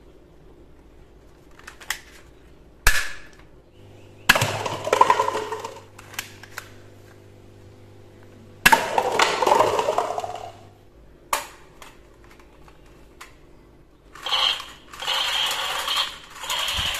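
A spring-loaded toy foam-dart pistol fires with sharp snaps, four shots a few seconds apart. Twice a shot is followed by a second or two of clattering as stacked paper cups tumble. Near the end a battery-powered toy revolver plays a harsh electronic sound effect.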